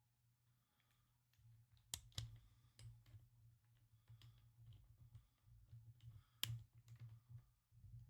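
Faint handling clicks and taps of a small tripod and ball head being handled on a desk, with a couple of sharper clicks about two seconds in and again past six seconds. Silent for the first second or so.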